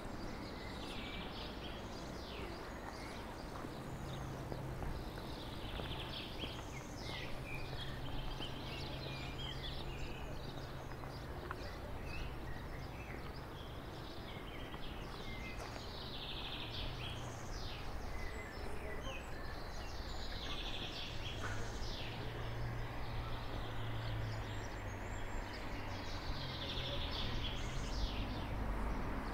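Small birds chirping and singing again and again over steady outdoor background noise, with a low hum that swells and fades twice.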